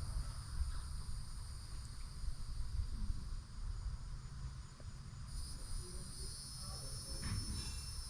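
Steady high-pitched insect chorus holding two even tones over a constant low rumble, with a couple of faint knocks near the end.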